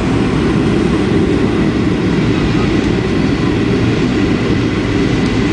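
Airliner during landing: a loud, steady rumble of engines and rushing air, with a faint steady whine above it.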